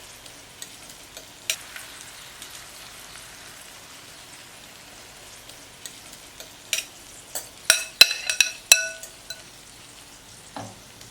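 Egg-and-potato omelette mixture sizzling steadily in a frying pan. In the second half, a metal utensil clinks and taps against the pan several times, with short ringing notes.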